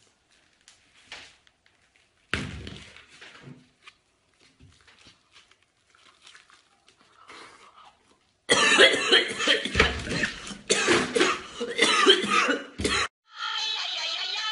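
Faint scattered sounds, then a person's voice in loud bursts for about four seconds past the middle. Music starts near the end.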